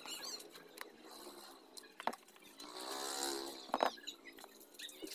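Small clicks and knocks of rifle accessories and packaging being handled on a cardboard box, with a pitched animal call lasting about a second midway.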